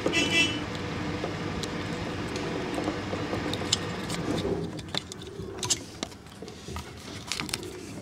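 Small plastic clicks and rattles as the start relay and overload protector are worked off a refrigerator compressor's terminals, scattered through the second half. Under them a steady low rumble fades out about halfway through.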